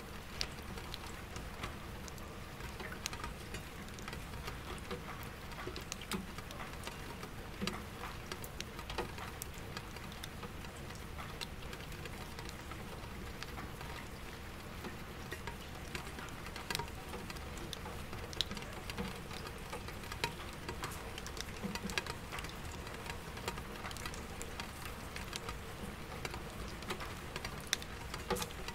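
Soft rain falling on window glass and into an empty bucket, with many separate drop ticks over a low, steady city hum of distant traffic.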